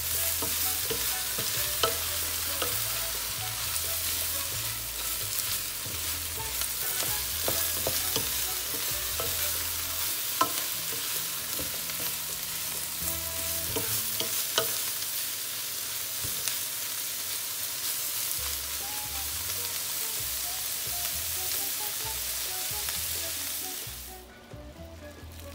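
Chopped beef tripe and offal with onions sautéing in a nonstick pan: steady sizzling with scattered clicks and scrapes of a wooden spatula stirring. The sizzle cuts off suddenly near the end.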